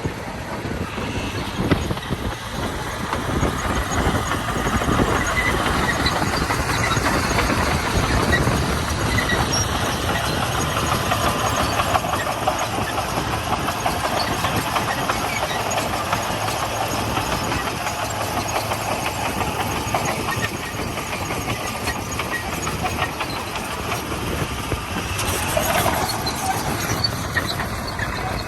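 Komatsu D41P crawler bulldozer's diesel engine running steadily, with the steel tracks rattling as it works gravel.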